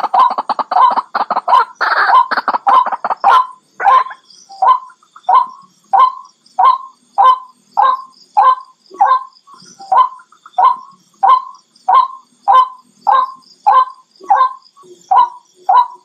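White-breasted waterhen calling. A dense, fast run of notes for the first three seconds or so settles into a steady series of single repeated calls, a little under two a second.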